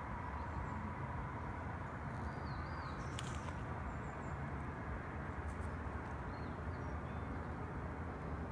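Steady rushing outdoor background noise with a few faint, short, high bird chirps, and a sharp click a little past three seconds in.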